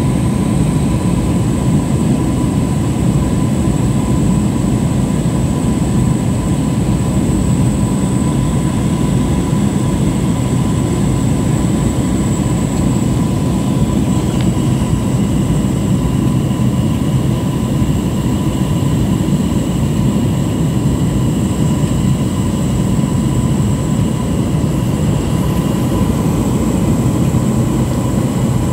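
Steady drone of a single-engine high-wing light plane's engine and propeller, heard from inside the cabin in flight, with thin steady high tones above it and another faint tone joining about halfway through.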